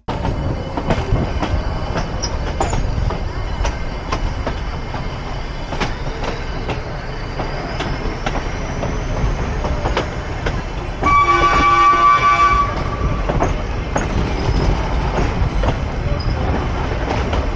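Nilgiri Mountain Railway toy train running on metre-gauge track, heard from aboard: a steady rumble with the clicks of rail joints. One horn blast of about a second and a half comes about eleven seconds in and is the loudest sound.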